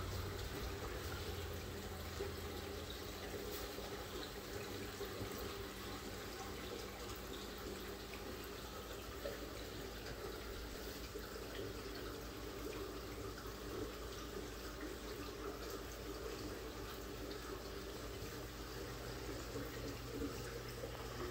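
Aquarium filtration running: a steady rush and trickle of moving water with a low steady hum underneath.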